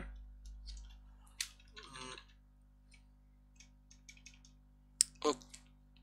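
Scattered computer keyboard keystrokes, single clicks and a few quick runs, over a faint steady hum. A short vocal sound comes about two seconds in and again near the end.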